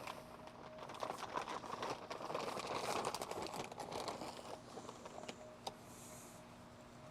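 A rustling, crinkling noise made of many fine clicks, building about a second in, loudest in the middle and dying away after about five seconds.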